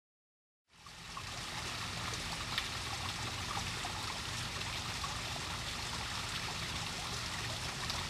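Steady running and trickling water of a garden pond's stream or waterfall, starting after a moment of silence.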